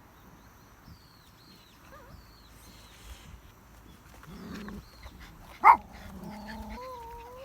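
A dog barks once, sharply and loudly, a little over five seconds in, then keeps up a steady drawn-out whine. Faint bird chirps come before it.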